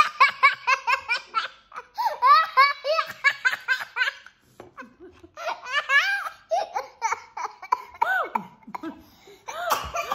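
A three-year-old boy laughing hard, a high-pitched belly laugh in rapid ha-ha-ha runs that come in three bouts with short pauses. A single thump sounds near the end.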